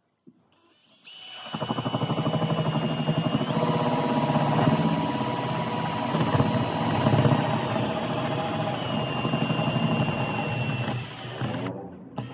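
Electric drill running. It starts about a second and a half in and runs for about ten seconds with a rapid, even pulsing and a high steady tone, then stops shortly before the end.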